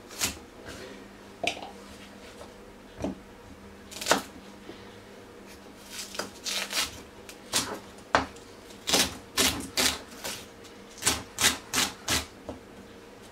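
Kitchen knife chopping vegetables on a chopping board: sharp knocks, a few widely spaced at first, then a quicker run of about two a second through the second half.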